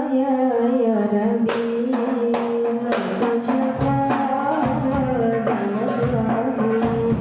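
Sholawat singing in held, drawn-out notes with hadroh hand drums (rebana frame drums) striking in about a second and a half in, and deep bass-drum beats joining at about four seconds.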